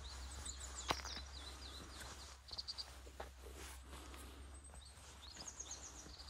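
Small birds chirping in short runs of quick, wavering high notes over a steady low rumble, with a single sharp click about a second in.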